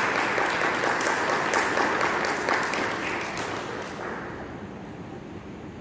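Audience applauding, a dense patter of many hands clapping that dies away about three to four seconds in.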